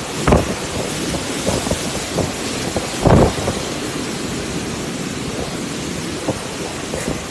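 Steady rush of storm wind and rain, with two heavy low thumps, one about a third of a second in and one about three seconds in.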